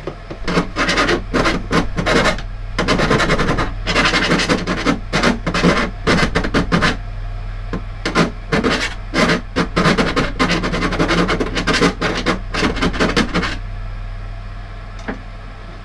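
A hand file rasping out a freshly drilled cable-gland hole in the metal top of a fuse board, in quick, irregular strokes that stop about two seconds before the end.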